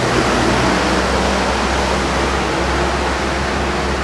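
Heavy diesel truck engine running close by as the truck pulls away, a low steady rumble under a constant hiss.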